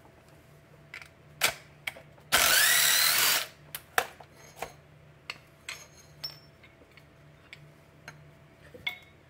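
A small cordless impact wrench runs for just over a second, its pitch rising, to loosen a bolt while the old pitch stop mount is taken apart from its bracket. Scattered sharp clicks and clinks of metal parts and tools come before and after it.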